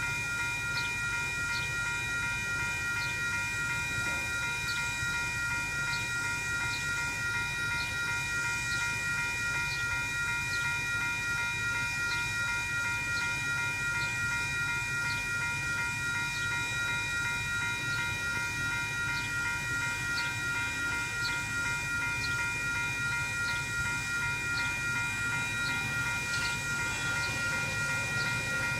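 Railroad crossing bells, Western-Cullen-Hayes Type 2 E electronic bells, ringing steadily while the crossing is activated, over a low rumble.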